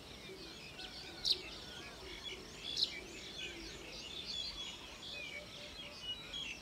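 Small birds chirping and twittering in many quick, overlapping calls, with a few sharper, louder calls about a second in and again a second and a half later, over faint open-field background noise.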